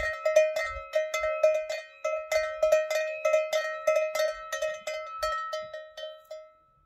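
Cow's neck bell clanging irregularly, about four strikes a second, as the cow moves its head. The ringing grows weaker and sparser near the end.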